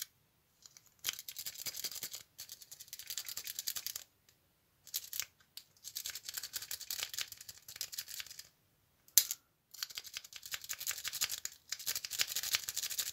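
A Sparrows worm rake being scrubbed rapidly in and out of a pin-tumbler padlock's keyway under tension, giving a fast scratchy clicking of metal over the pins in three bouts with short pauses, and one sharp click about nine seconds in. The pins do not all set and the core does not turn: the lock won't rake open.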